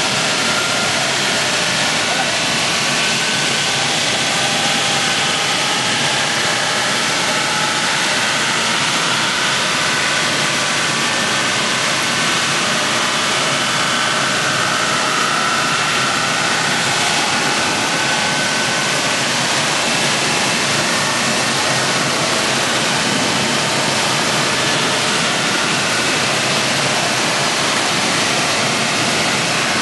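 Wood sawdust making machine running under load, crushing wood into fine sawdust that pours out of its discharge. It makes a loud, even rushing noise with a faint wavering whine on top.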